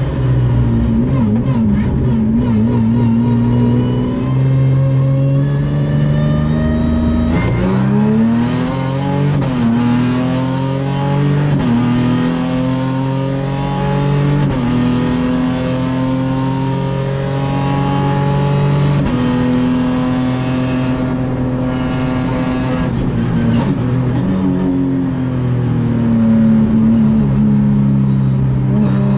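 V6 race car engine heard from inside the cockpit, running hard at high revs. Its pitch dips and climbs about a quarter of the way in, then steps sharply several times as the driver shifts and lifts.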